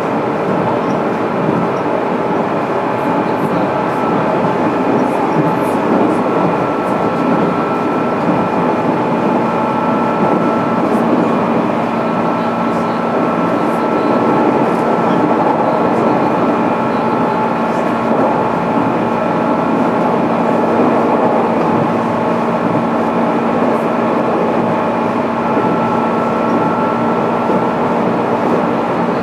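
Steady running noise of a JR East 205-series electric train heard from inside the motor car MoHa 205-612, with wheels on rail and a few faint steady whining tones from the motor and gear drive.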